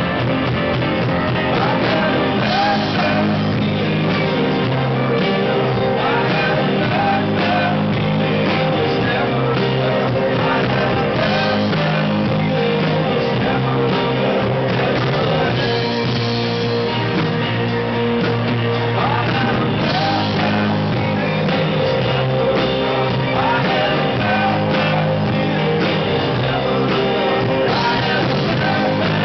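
Rock band performing a song live through a PA, with a singer over the amplified instruments at a steady, loud level.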